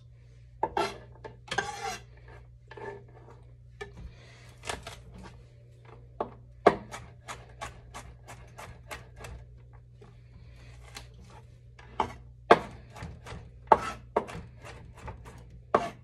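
Chef's knife chopping garlic on a wooden cutting board: sharp knife strikes on the wood in quick runs of about three or four a second, with some scraping of the blade across the board.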